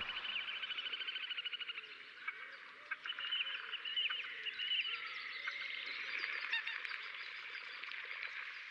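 Overlapping animal calls: fast pulsed trills and short chirping calls that come and go, strongest at the start and again about three to five seconds in.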